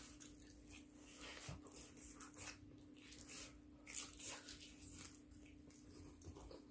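Two people chewing sauced fried chicken: faint, irregular wet smacks and mouth clicks over a steady low hum.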